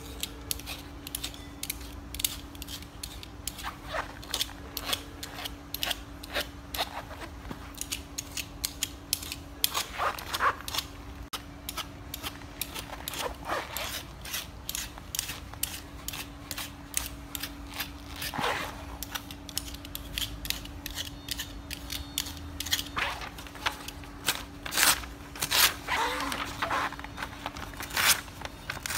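A knife blade scraped and slashed again and again across the cut-resistant fabric of a boot's upper, in short sharp strokes about one to three a second, with the fabric holding. Near the end the blade slices through a sheet of paper. A faint steady hum runs underneath.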